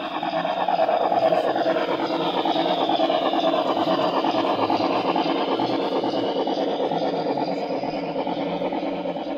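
Model train rolling past: a New York Central Hudson model steam locomotive and its freight boxcars running on the track, a steady mechanical rumble and clatter that is loudest about a second in as the locomotive goes by, then slowly fades as the boxcars follow.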